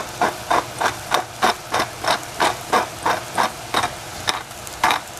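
Hand-twisted pepper mill grinding peppercorns: a rhythmic crunching click about three times a second, pausing briefly near four seconds in, then a few more turns.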